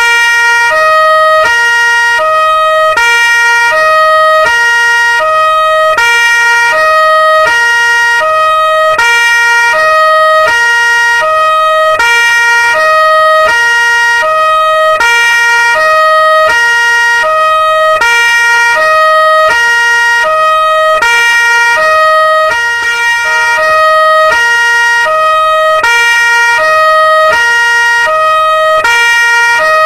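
European two-tone police siren alternating steadily between a low and a high note, about one full low-high cycle a second, with a steady high tone running underneath.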